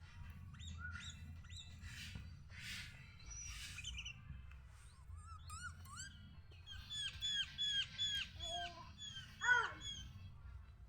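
Sooty-headed bulbul (kutilang) singing: scattered short whistled notes, then, over halfway in, a quick run of repeated down-curving notes at about three a second, with one louder falling note near the end, over a steady low rumble.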